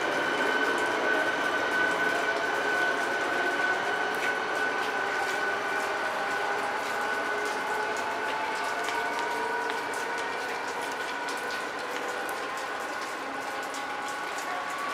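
ČD CityElefant double-deck electric unit pulling away, with a steady high electric whine and lower traction-motor tones rising slowly in pitch as it gathers speed, fading as the train draws off.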